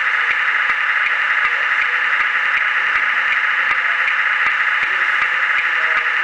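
Steady loud hiss, unchanging, with a few faint ticks.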